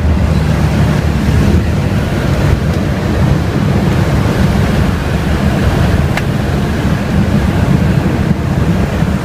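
Loud steady roar of wind rushing past the open jump door of a GippsAero GA8 Airvan in flight, over the drone of its piston engine, with wind buffeting the microphone.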